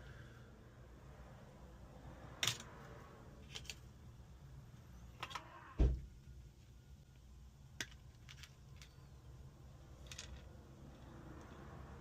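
Scattered small clicks and taps of repair tools and parts being handled while a smartphone is taken apart, with one duller knock about six seconds in, over a steady low background rumble.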